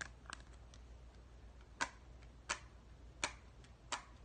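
Bubbles of a pineapple-shaped hard-shell pop-it fidget toy being pressed one at a time with the fingers. There are six sharp pops, most about three-quarters of a second apart.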